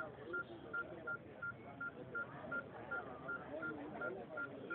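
A short, high electronic beep repeating evenly about three times a second, over the murmur of many voices from a crowd of spectators.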